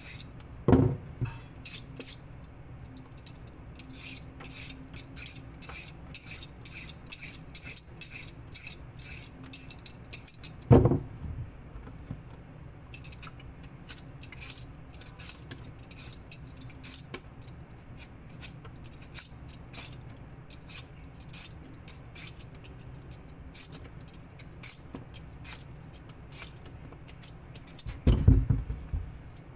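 Light clinking and rattling of small hard objects, many quick ticks throughout, with a few louder dull thumps: one about a second in, one in the middle and a cluster near the end.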